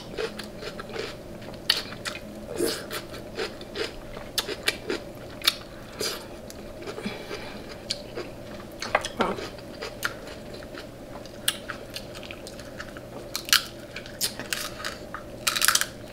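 King crab leg shells cracking and snapping as they are broken open by hand, with close-miked chewing: many sharp, irregular cracks and clicks.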